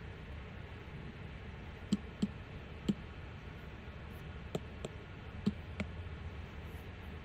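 Taps on an iPad's glass touchscreen: about seven short clicks, three about two to three seconds in and four more between four and a half and six seconds in, over a low steady hiss.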